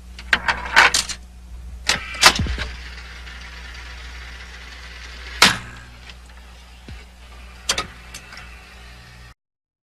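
Jukebox mechanism selecting and playing a 45 rpm record: a steady motor hum under several bursts of mechanical clicks and clunks. It cuts off suddenly near the end.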